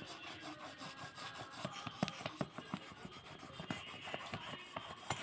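Pencil rubbed lightly back and forth over a sheet of paper, a faint scratchy shading sound made of many short, uneven strokes.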